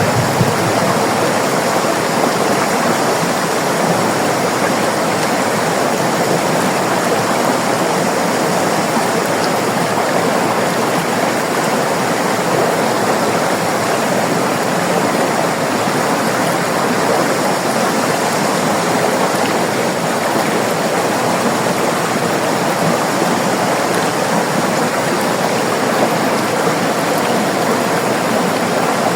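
River water rushing steadily, a constant even noise with no breaks.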